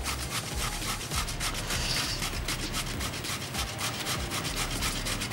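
Par-boiled potato being grated on a stainless steel box grater, in quick repeated rasping strokes.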